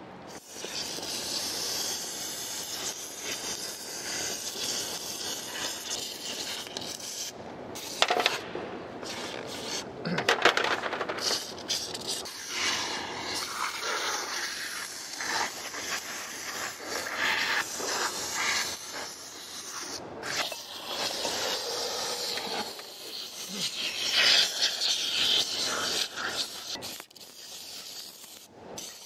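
Aerosol foam cleaner hissing from a spray can onto turbocharger housings in long spurts with a few short pauses, loosening carbon deposits so the parts can be cleaned and reused.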